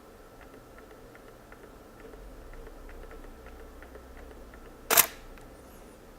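A camera shutter releasing once, a single photo taken about five seconds in, against faint, evenly spaced small ticks.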